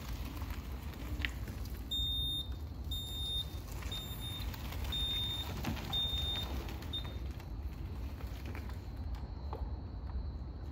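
Red electric mobility scooter's beeper sounding six times, about once a second, in high, clear beeps over a steady low rumble.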